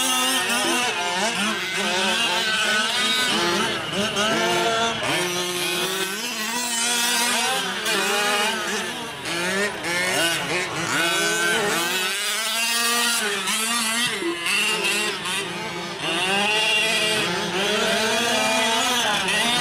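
Small two-stroke engines of several 1/5-scale gas RC trucks racing, revving up and down over and over in overlapping rising and falling whines as the trucks accelerate and brake through the turns.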